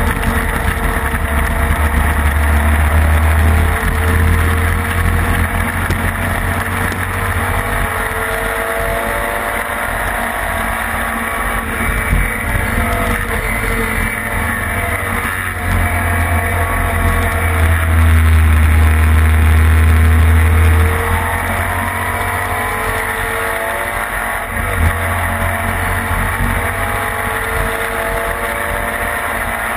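Classic racing sidecar outfit's engine heard onboard at racing speed, its revs rising and falling through gear changes and corners, under a heavy low wind rumble on the microphone that swells loudest about two-thirds of the way through.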